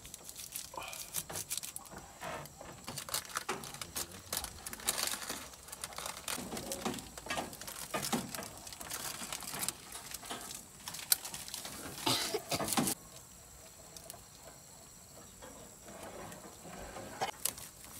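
Small plastic seasoning packets crinkled and torn open by hand: a dense run of crackling clicks that stops abruptly about thirteen seconds in.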